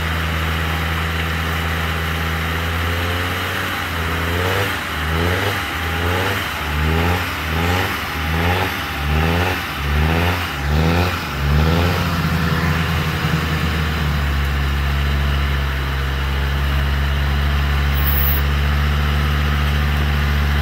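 Land Rover Discovery TD5's five-cylinder turbodiesel engine running steadily, then revved in short repeated bursts about once a second for some eight seconds. It then settles into a steady, higher-revving run.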